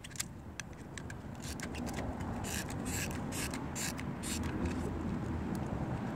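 Small hot glue gun being squeezed and pressed against a plastic dash panel: scattered clicks and short scrapes over a faint low hum.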